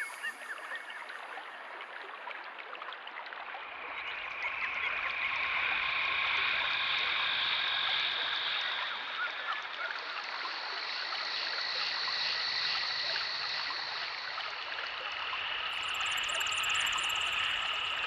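Nature ambience: running water with a dense chorus of calling animals layered over it, growing fuller about four seconds in, with high chirps near the end.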